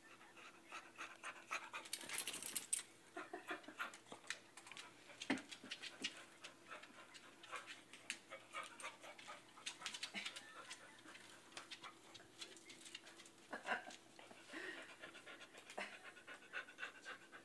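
Dog panting: rapid, short breaths in and out, repeating quickly and steadily.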